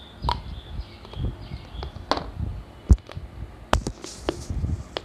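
Crunching bites into a dry piece of multani mitti (fuller's earth clay) dipped in chalk paste, and chewing: several sharp crunches, the loudest about three seconds in, over low chewing sounds close to the mouth.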